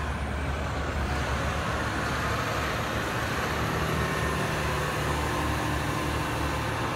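Caterpillar 323 hydraulic excavator's diesel engine running steadily.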